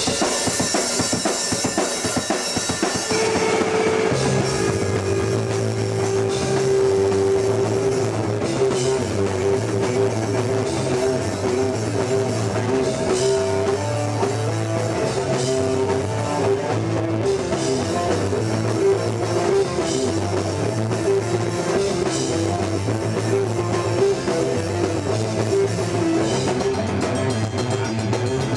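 A punk band playing live through a small PA: electric guitar, bass guitar and drum kit, with the bass line coming in about three seconds in.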